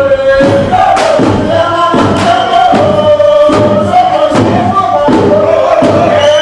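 Music with group singing or chanting over a steady drum beat, about two beats a second.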